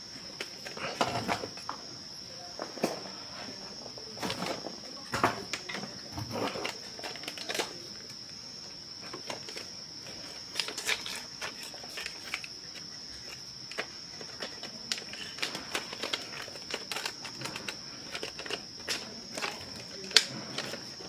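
Scattered clicks, taps and knocks of a toy dog and its small parts being handled, over a steady high-pitched whine.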